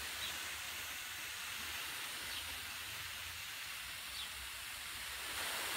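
Garden pressure sprayer misting rose bushes with a steady hiss.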